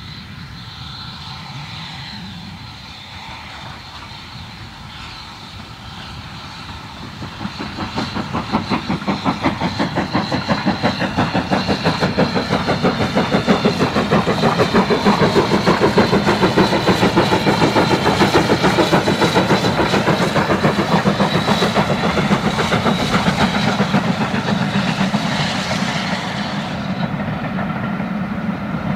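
BR Standard Class 4 2-6-4 tank steam locomotive working hard past with a passenger train. Its exhaust beats come in about seven seconds in as a fast, even chuffing that grows loud in the middle, then eases and dulls a little near the end as the engine draws away.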